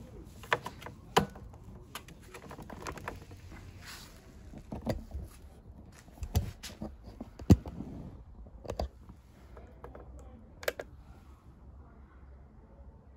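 Scattered clicks and knocks of hands working the controls of a Pride Go Go Elite Traveller mobility scooter, beginning with its yellow rear lever, with one sharp knock about seven and a half seconds in the loudest.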